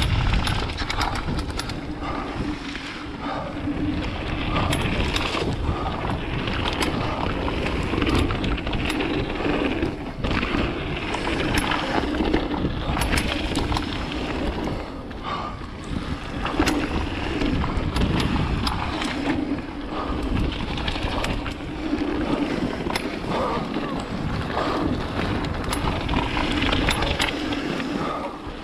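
Mountain bike ridden over a rough, wet race trail: steady tyre and riding noise with frequent clattering knocks and rattles from the bike over the ground.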